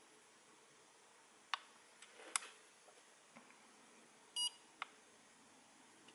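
A few faint clicks of buttons being pressed on FPV goggles, and about halfway a single short electronic beep from the goggles.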